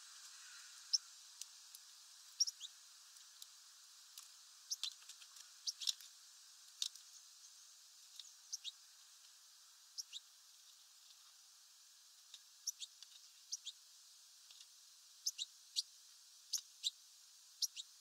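Small songbirds chirping: short, high calls scattered irregularly, several in quick pairs.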